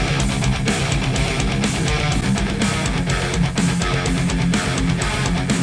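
Heavy metal track with distorted electric guitars and drums at a steady driving beat, played through studio monitors and picked up by a microphone in the room. Playback goes from a pair of Yamaha HS8 monitors to a pair of Kali Audio LP-8 monitors partway through.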